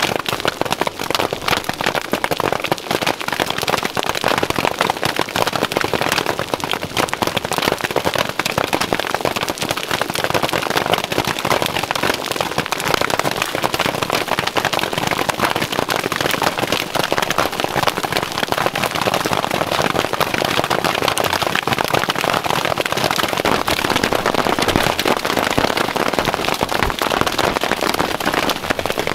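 Heavy hail pelting down, a dense, unbroken clatter of countless small hailstones striking the ground, rocks and heath. A deeper rumble joins in the last few seconds.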